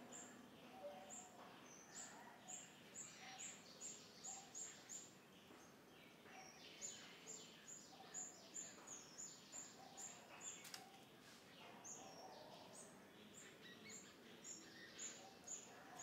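Faint birdsong: runs of short, high chirps repeated about three times a second, several runs of a few seconds each, over quiet outdoor background hiss.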